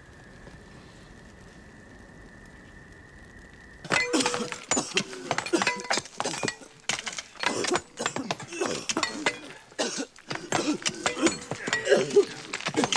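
Many hand tools striking rock, a dense, irregular run of sharp clinks and knocks that starts suddenly about four seconds in, after a stretch with only a faint steady high tone.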